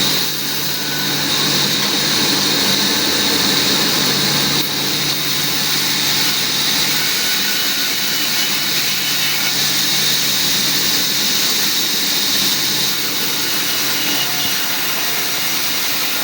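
A woodworking machine running steadily: a loud, even hiss with a low hum under it.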